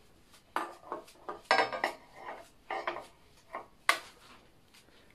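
Metallic clinks and clatter from a dosa tawa on a gas burner being handled while the flame is lit, about six short strikes with a sharp click near four seconds in.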